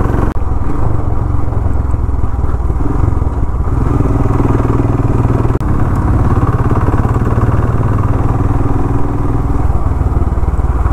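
Royal Enfield Himalayan's single-cylinder engine running as the motorcycle rides along at road speed, heard from the bike itself with wind and road noise. The sound is steady, with a brief dip about halfway through.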